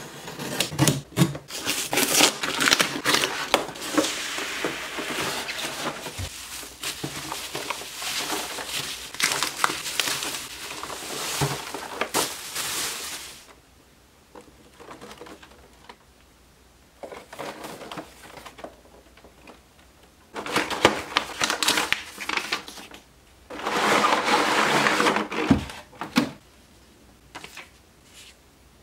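Cardboard shipping box being cut open and unpacked by hand: packing tape slit and torn, cardboard flaps scraping and packaging rustling, in dense crackling bursts. There is a quieter stretch around the middle, then more handling noise.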